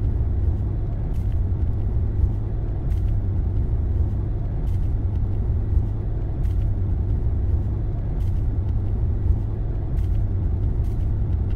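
Hyundai Veracruz SUV driving, heard from inside the cabin: a steady low rumble of engine and tyre noise, with faint ticks about every two seconds.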